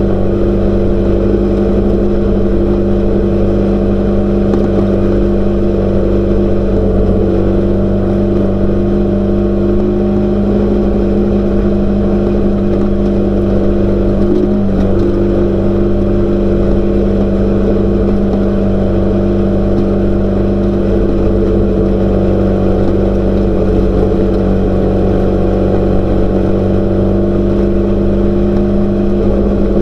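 Off-road race car engine running hard at a steady, high pitch, with only a brief wobble about halfway through.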